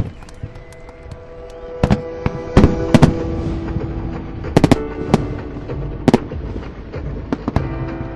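Fireworks shells bursting in sharp bangs, about half a dozen loud ones among smaller cracks, at irregular intervals. Music plays underneath and grows louder over the first few seconds.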